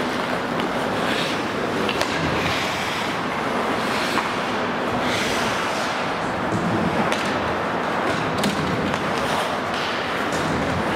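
Ice hockey play on an indoor rink: skate blades scraping and carving the ice, with a few sharp clicks of stick on puck.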